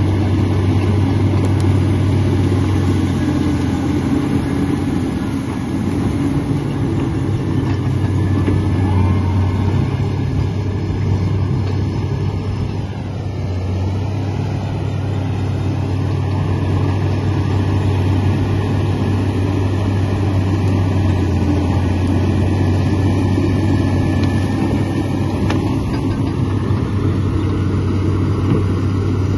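Komatsu D85 crawler bulldozer's diesel engine running steadily: a continuous deep drone.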